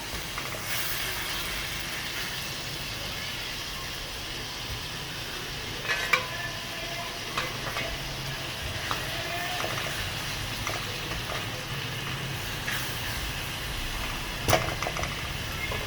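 Chopped tomatoes and onions sizzling steadily in hot oil while being stirred. A spoon knocks against the pot a few times, loudest about six seconds in and again near the end.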